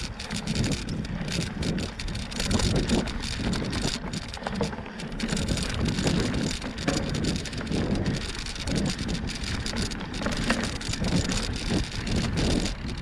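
Bicycle ridden along a dirt trail: tyres crackling and rattling over the ground, with wind buffeting the microphone in uneven gusts.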